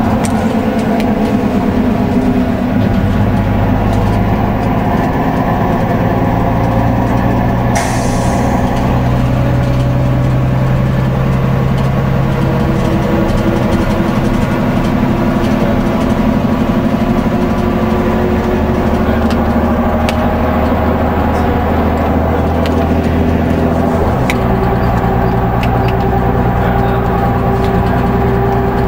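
Leyland Lynx II single-deck bus heard from inside the saloon while under way: the engine runs steadily, its note shifting several times, with an abrupt change about 24 seconds in. There is a brief hiss about 8 seconds in, and occasional small clicks.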